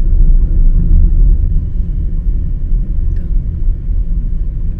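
Steady low rumble of a car driving at highway speed, heard from inside the cabin: road and engine noise, a little quieter after about a second and a half.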